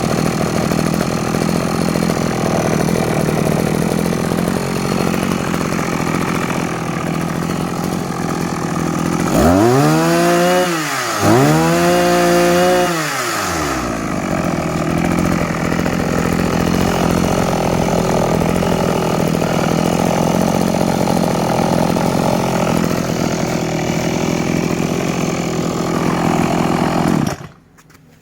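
Petrol grass cutter (brush cutter) engine idling, revved up twice about ten and twelve seconds in, the pitch rising and falling with each rev, then settling back to idle until the engine is switched off near the end.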